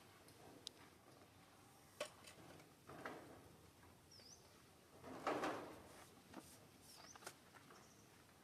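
Faint outdoor quiet in which a small bird gives a short, high chirp twice, a few seconds apart. Scattered light clicks and a brief rustle about five seconds in, the loudest sound, break the quiet.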